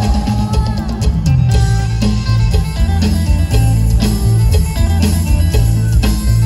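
Live Lam Tang Wai (Isan folk) stage band playing an instrumental passage: a plucked-string lead over a steady bass and drum beat.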